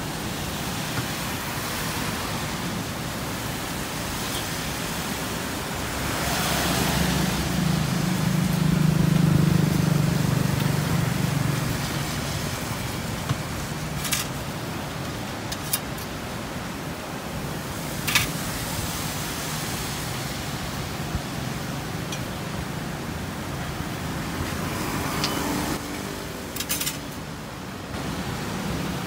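A motor vehicle passing by, its low engine drone swelling from about six seconds in and fading by twelve, over a steady outdoor hiss. A few sharp clicks come later.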